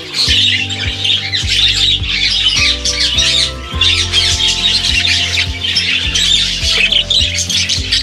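A flock of budgerigars calling continuously in a high, busy chatter, with background music of low sustained notes underneath.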